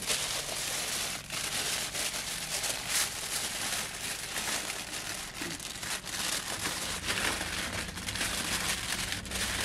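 Aluminium foil crinkling and crackling continuously as hands fold and crimp it into a packet.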